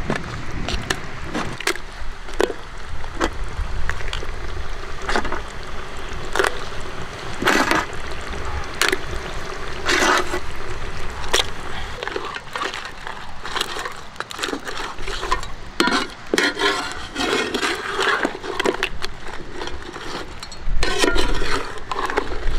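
Boiled crabs being added to masala gravy in a wok and stirred: repeated sharp knocks and clatters of crab shells against the metal pan, with wet sloshing of the gravy.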